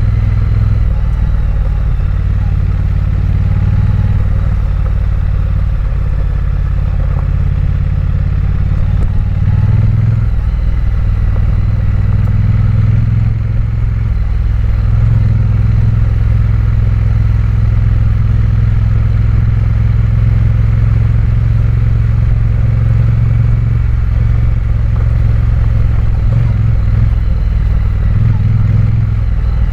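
Triumph Bonneville's parallel-twin engine running steadily under way, a low drone that shifts slightly with the throttle a few times.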